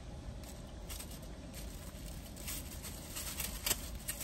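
Plastic wrapper crinkling as a disposable plastic spoon is unwrapped: scattered small crackles that get busier over the last couple of seconds, with one sharper click near the end.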